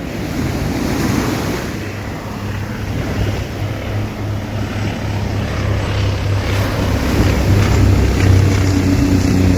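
Sea waves washing on the beach, with wind buffeting the microphone. A low steady hum grows louder in the last few seconds.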